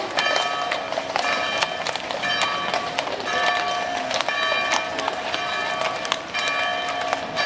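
Shod horses walking on brick paving, their hooves clopping in an uneven beat. Steady held tones that stop and start every second or so sound behind them.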